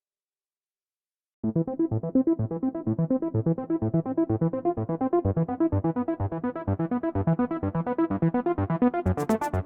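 Background electronic music that starts about a second and a half in: rapid, evenly pulsing synthesizer keyboard notes. Near the end a crisp high percussion layer joins.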